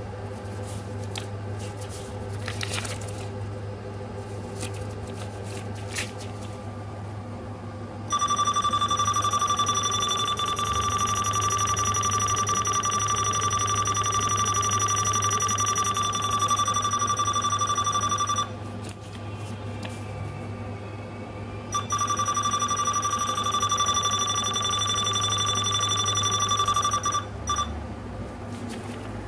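Honeywell MS2421 in-counter barcode scanner beeping without a break as it reads a barcode held in front of it: a loud, steady, high beep tone that starts about eight seconds in, stops for about three seconds, then returns for about five seconds. A low steady hum lies underneath, with a few light clicks before the tone starts.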